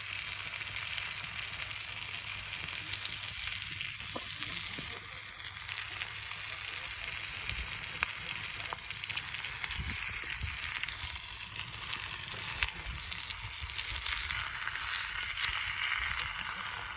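Marinated tandoori chicken frying in a pan over a campfire: a steady sizzle with scattered small pops and crackles.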